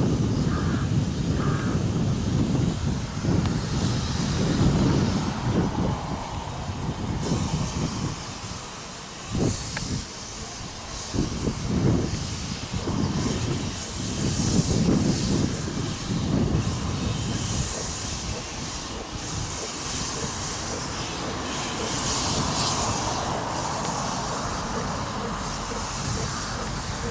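Narrow-gauge steam locomotive moving slowly with its cylinder drain cocks open, blowing off a steady loud hiss of steam. A heavy low rumble fills the first seven seconds or so, and a few separate heavier puffs come through in the middle.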